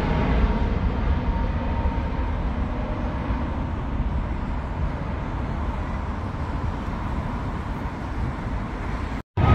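Jet airliner engine noise from a big plane passing low overhead, a steady deep rumble that slowly fades as it moves away, then cuts off suddenly near the end.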